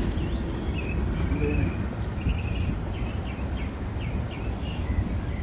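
Small birds chirping in a series of short, high notes over a steady low background rumble.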